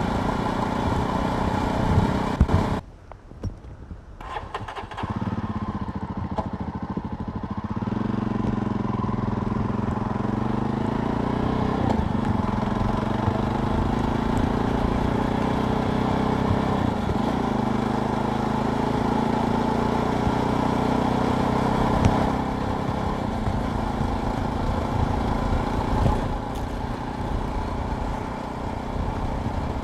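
Jawa Perak motorcycle's single-cylinder engine under way, its exhaust note rising and falling with the throttle. About three seconds in the sound drops off sharply for a couple of seconds, then comes back in full and pulls on steadily.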